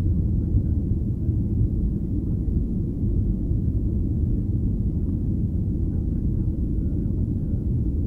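Steady low rumble inside the cabin of a Boeing 737-800 in flight: its CFM56-7B jet engines and the airflow over the fuselage, heard from a window seat over the wing.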